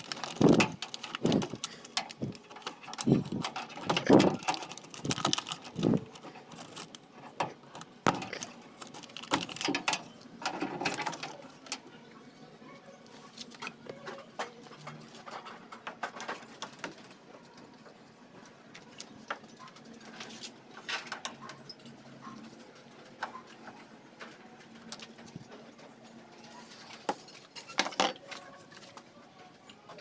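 Hands dismantling a washing machine: a quick run of clicks and knocks over the first dozen seconds as wire connectors are pulled apart, then scattered taps and clicks of a screwdriver working on the cabinet panels.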